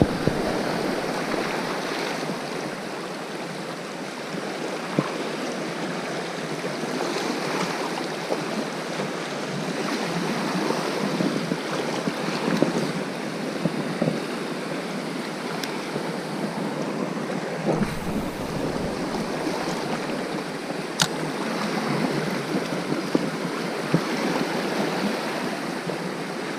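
Sea surf washing steadily onto the shore, with a short low rumble of wind on the microphone about eighteen seconds in.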